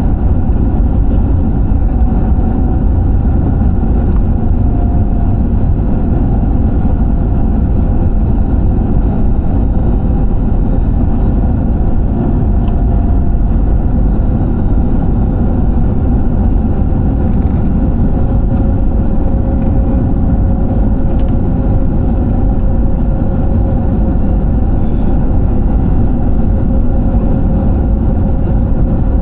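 Steady roar of a passenger airliner's engines and rushing air heard inside the cabin, with a faint hum that drifts slightly in pitch.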